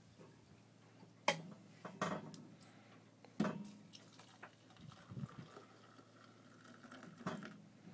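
Hot water poured from a stainless-steel kettle into a mug, a faint trickling stream, with several sharp knocks and clinks as the kettle is handled.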